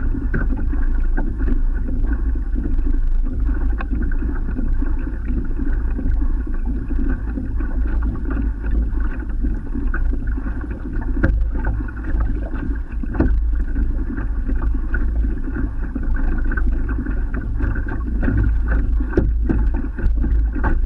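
Water rushing and splashing along the hull of a moving sit-on-top kayak, over a steady low rumble of wind on the microphone, with a few short knocks.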